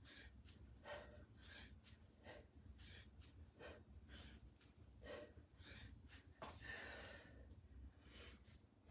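Faint, quick breaths of a person breathing hard through a set of two-arm kettlebell swings, about two breaths a second, with a longer breath about six and a half seconds in.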